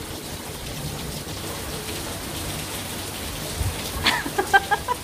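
Steady rain falling, an even hiss of drops on water and hard surfaces, with a quick run of short splashes and pops near the end.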